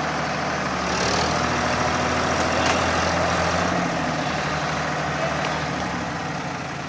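Sonalika farm tractors' diesel engines running steadily, swelling a little about a second in and easing off toward the end.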